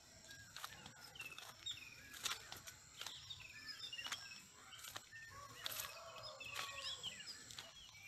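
Several birds chirping and calling with short, quick up-and-down notes, faint, with a few sharp clicks now and then.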